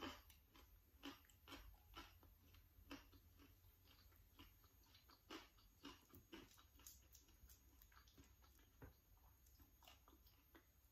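Faint chewing: a person eating with soft, irregular wet clicks and smacks of the mouth, a few a second, thinning out toward the end.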